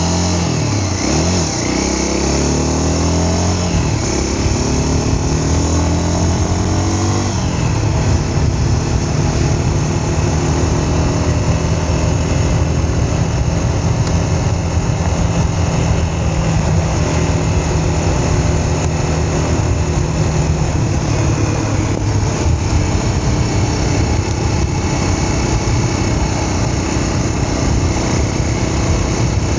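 Vehicle engine under way, its pitch rising and falling several times in the first seven seconds, then running at a steady speed, over a constant rushing noise.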